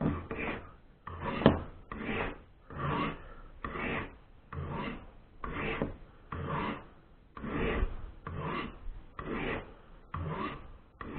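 Steel Swiss Army knife blade drawn lightly down the coarser ceramic rods of a Lansky Turn-Box crock stick sharpener, set at a 20-degree angle: a dozen or so separate rasping strokes, a little over one a second, as the edge is being sharpened.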